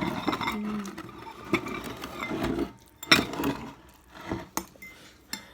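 Stainless-steel forks scraping and clinking against glass bowls of noodles, amid eating noises. There are several sharp clinks, the loudest about three seconds in.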